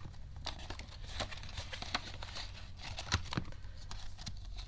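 Paper banknotes rustling and crinkling as they are handled, with the plastic pockets and divider pages of a ring binder being flipped, giving scattered soft clicks and rustles.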